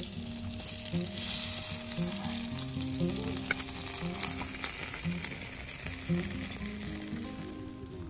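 Butter sizzling as it melts in a hot pan, loudest about one to three seconds in, then settling to a steady sizzle as a wooden spoon begins stirring.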